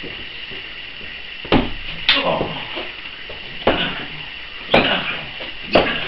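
Five heavy slams at irregular intervals, each followed by a brief rattle: impacts of a wrestling bout, bodies or weapons striking the ring or mat.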